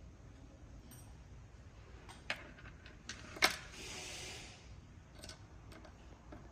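Small metal clicks and taps from screws and hand tools being handled during motor assembly, with one sharper click about three and a half seconds in followed by a brief hiss.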